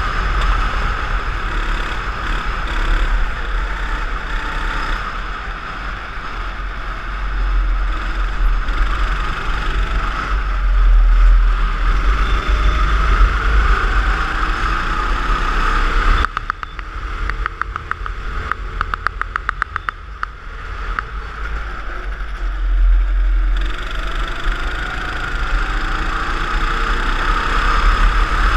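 Kart engine running hard, with wind buffeting the onboard camera. About halfway through the engine note drops away for several seconds, lifting off for a corner, with a run of rapid clicks, then it pulls hard again.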